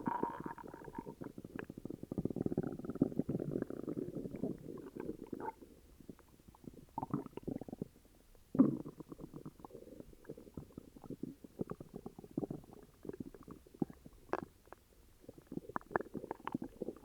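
Human stomach growling and gurgling from an upset stomach, in irregular bubbling rumbles. The loudest stretch comes about two to four seconds in, with one sharp louder gurgle about halfway through and softer, scattered gurgles after.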